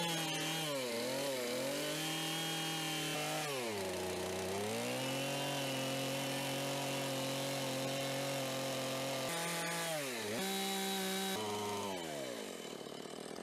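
Gas chainsaw running and cutting across the end of a wooden post, its engine pitch sagging under load and picking up again. The pitch drops away sharply near the end as the throttle eases.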